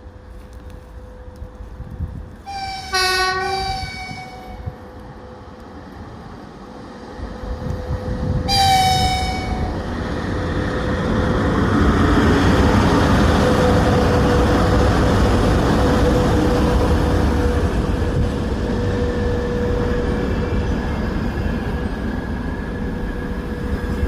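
VL80S electric locomotive sounding its horn in two short blasts, about six seconds apart. After the second blast the rumble of the passing container train builds up and stays loud and steady: wheels running on the rails.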